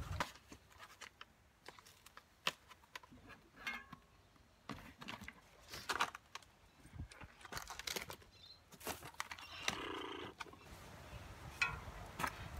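Faint, scattered clicks and rustles of cardboard and plastic packing being handled and pulled off a bicycle frame.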